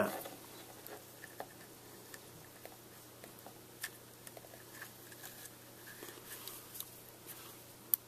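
Faint small clicks and taps of fingers fitting a ribbon cable's plastic SATA connector onto a 2.5-inch laptop hard drive, with one sharper click near the end.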